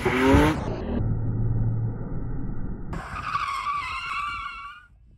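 BMW M4 drifting: the engine revs up with a rising note, then the tyres squeal in a wavering howl for about two seconds.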